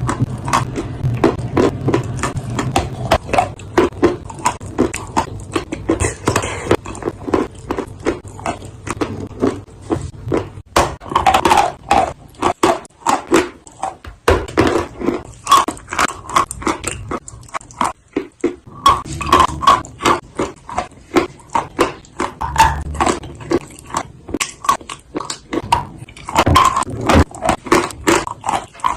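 Dry clay being bitten and chewed: a fast run of crisp crunches and cracks, several a second.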